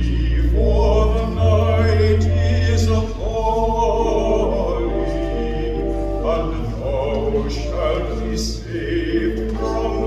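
A solo baritone voice singing a slow sacred song over sustained organ chords, with a low held bass note under the voice.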